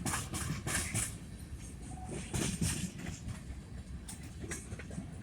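Freight train cars rolling past on the rails: a steady low rumble with irregular clanks and knocks from the wheels and couplings.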